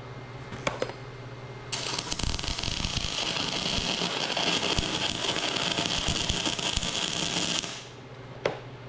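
Electric welding arc crackling steadily for about six seconds as a bead is laid on the steel of a snowplow mount, starting and stopping abruptly. The steel is rusty and painted, which doesn't weld that great. A low machine hum and a couple of sharp clicks lie before and after the weld.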